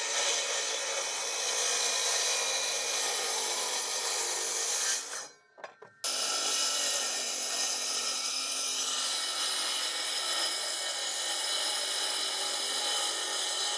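DeWalt cordless circular saw rip-cutting lengthwise through a vented OSB soffit panel, a steady run of blade and motor noise. It drops out briefly about five seconds in, then carries on steadily.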